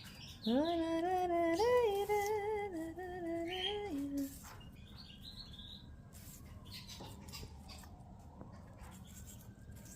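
A voice hums a wavering tune for about four seconds and then stops. Faint bird chirps follow.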